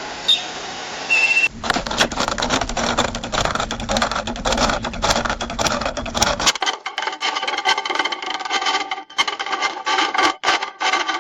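A short electronic beep and a brief steady tone, then a long dense rattle of coins clinking. For the last few seconds the clinking carries ringing metallic tones.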